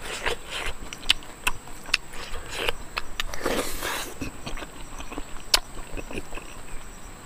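A steel spoon mashing and mixing rice and chutney in a wooden bowl: a string of sharp clicks and taps as the spoon strikes and scrapes the bowl.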